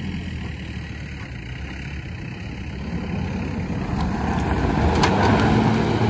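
Isuzu V-Cross pickup's diesel engine running on an off-road attempt, growing steadily louder over the last few seconds. A couple of sharp clicks come about four and five seconds in.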